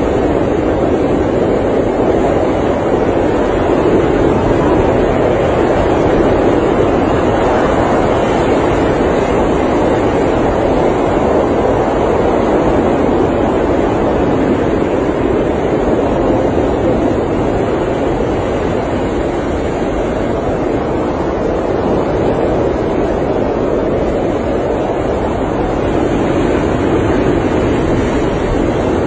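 Blizzard wind rushing steadily around an RV, heard from inside as a dense, low rushing noise that slowly swells and eases.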